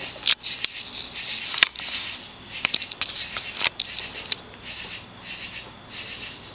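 HRS 56-inch ceiling fan with a cast-iron spinner motor running at medium-low speed: a hiss of moving air that swells and fades in a steady rhythm. A few sharp clicks sound in the first half.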